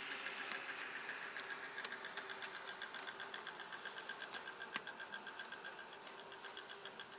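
Honeybees humming over an open hive, with a rapid, regular ticking of about ten pulses a second that fades toward the end. Two sharp clicks of a metal hive tool against the wooden frames, about two and five seconds in.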